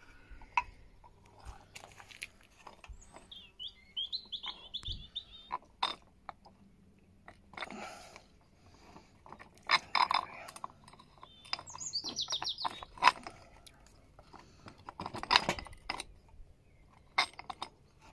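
Small birds chirping in two short bursts of rapid high trills, among scattered clinks and knocks as metal fittings are handled.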